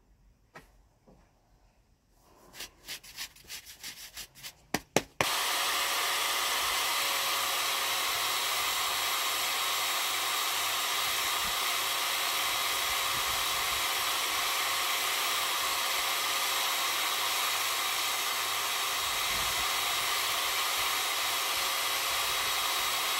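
A few quiet knocks and scrapes, then about five seconds in a corded electric drill fitted with a sanding disc starts and runs at a steady pitch, sanding the shaped end of a debarked wooden staff, with an even whine over the grinding hiss.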